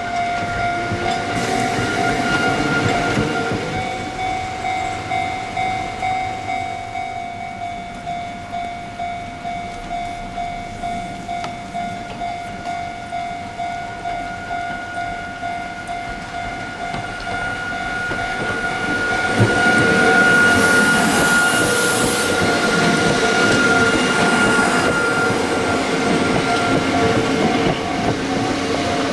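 Railway level-crossing alarm ringing in steady, even dings, about one and a half a second. Partway through, a Hakone Tozan Railway electric car runs past close by, its wheels and running gear rumbling and clattering over the alarm, loudest around two-thirds of the way in.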